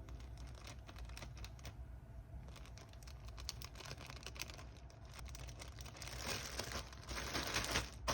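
Faint crinkling and rustling with many small ticks and taps, as of hands handling something. It grows busier and a little louder about six seconds in.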